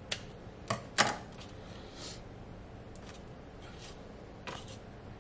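Kitchen scissors snipping through soft biscuit dough: a few sharp clicks of the blades closing in the first second or so, the loudest about a second in, then another lighter click later.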